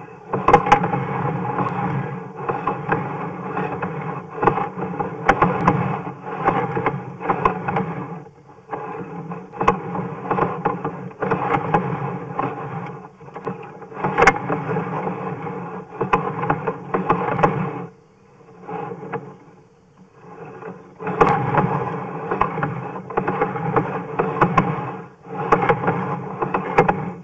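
Sewer inspection camera being pushed through the pipe: the push cable and camera head scrape and rattle in uneven bursts, with a pause for a few seconds in the latter half.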